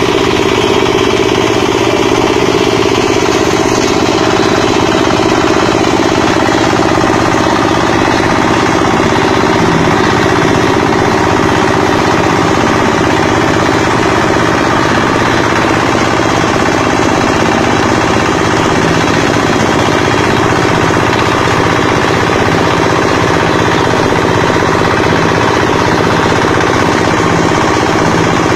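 Multipurpose grass chopper and compost grinder machine running loudly and steadily.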